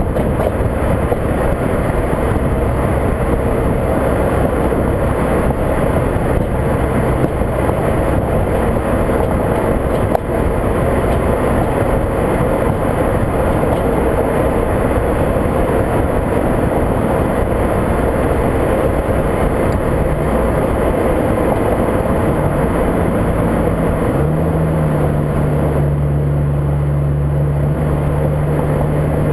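Wind and road noise from a moving Volkswagen Mk5 GTI, with a single light knock about ten seconds in, the kind of clank the front suspension makes over bumps. Its 2.0-litre turbo engine runs under the noise and drones at a steady pitch from about 24 seconds in.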